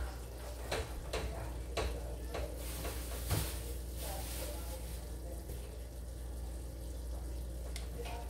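Kitchen background: a soft, steady hiss from taco meat cooking on low on the stove, over a low hum. A few scattered knocks and clatter come in the first half.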